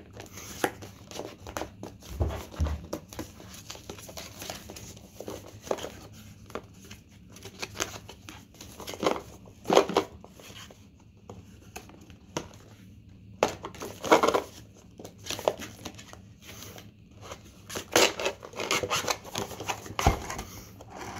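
Cardboard and clear plastic packaging of a GoPro camera box rustling and crinkling as it is handled and opened and the inner tray is slid out of its sleeve. The handling noises are irregular, with a few louder crackles.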